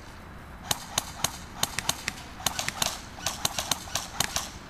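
Airsoft guns firing in a skirmish: scattered sharp pops, some in quick strings of several shots.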